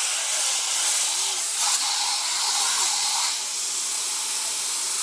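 Garden hose spray nozzle hissing steadily as water is sprayed into the base of a fence post, soaking the dry cement mix set around it.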